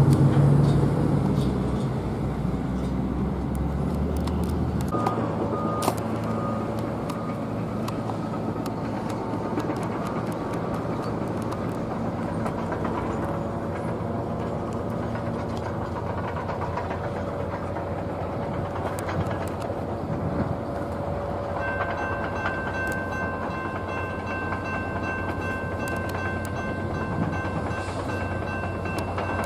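Norfolk Southern diesel-hauled freight train approaching on a curve. A heavy low rumble fades in the first few seconds, then a steady running noise remains, and steady high tones join about two-thirds of the way through.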